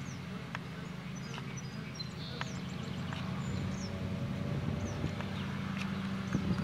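A horse walking on soft arena dirt, its hoofbeats faint against a steady low hum, with songbirds chirping repeatedly.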